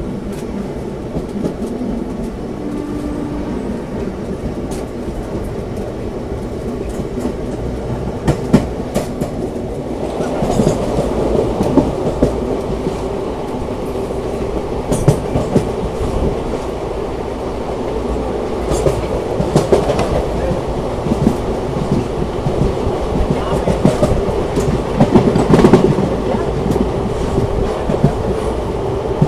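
Passenger train coaches rolling out of a station and picking up speed, heard at an open coach door: a steady rumble of wheels on rail with scattered clicks as the wheels cross rail joints, growing louder about ten seconds in.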